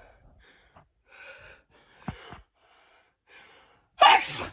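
A woman's sneeze: three short gasping in-breaths building up, then a loud sneeze bursting out near the end.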